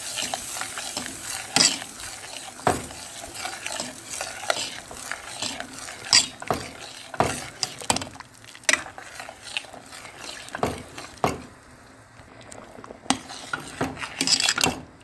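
Metal spoon stirring a steel pot of simmering chicken corn soup, knocking and scraping against the pot at irregular moments as the egg white is stirred in. A hiss from the simmering soup dies away near the end.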